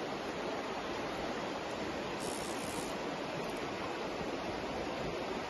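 Steady rushing of a shallow river running over gravel.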